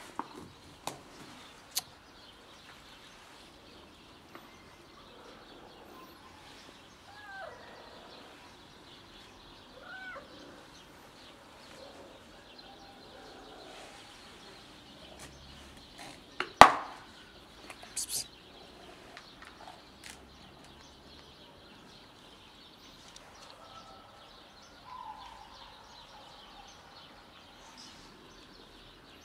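Quiet background with a few faint chirps, broken about halfway by a sharp loud click and a second, smaller click a second and a half later.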